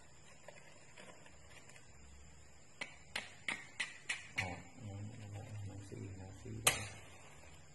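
Matches struck against the side of a matchbox: a quick run of about six short scratchy strikes, roughly three a second, then one louder strike near the end.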